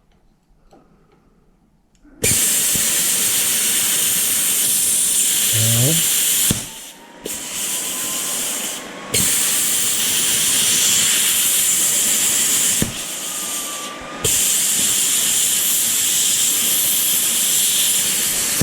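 Plasma cutter cutting a metal bracket, a loud steady hiss that starts about two seconds in and breaks off briefly three or four times as the cut is restarted.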